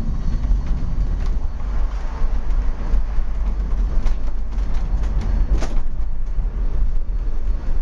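Angels Flight funicular car rolling down its incline track, a steady low rumble with a few sharp clicks, as the car slows toward the bottom station.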